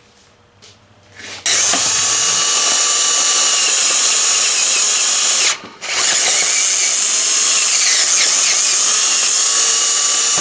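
Electric drill running a 33/64-inch twist bit into the aluminum primary case, boring out the stripped drain-plug hole for a Helicoil. It runs in two long stretches with a short stop about halfway through.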